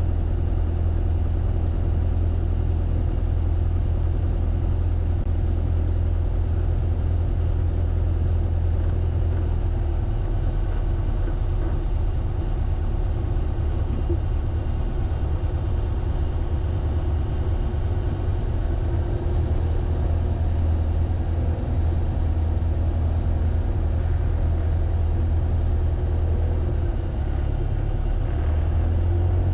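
Light sport aircraft's piston engine and propeller running steadily at low power while taxiing after landing, a deep, even drone.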